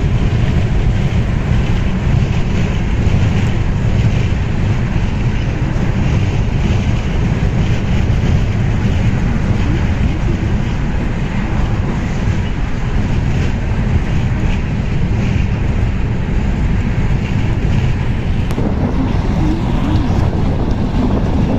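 Loud, steady rumble of wind buffeting the microphone.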